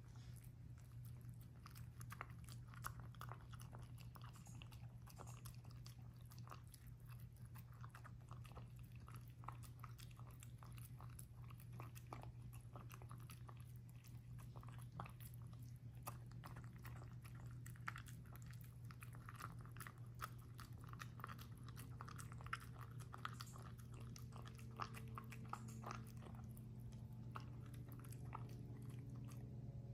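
A dog eating from a hand-held stainless steel bowl: a steady run of small chewing and biting clicks, over a low steady hum.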